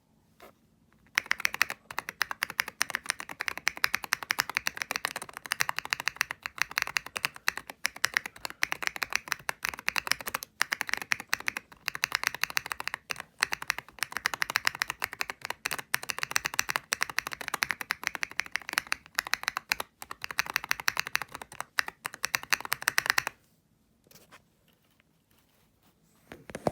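Mechanical keyboard with newly fitted switches being typed on fast, a dense run of key clicks. It starts about a second in and stops a few seconds before the end.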